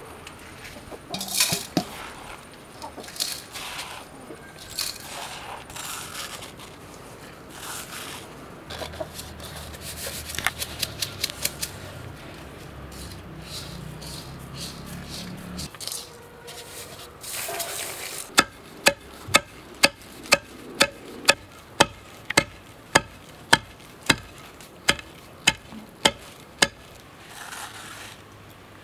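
Hands scooping and rubbing roasted red rice powder out of a stone mortar and in a steel bowl, with scattered scraping and rustling. In the second half comes a regular run of sharp knocks, about two a second, that stops shortly before the end.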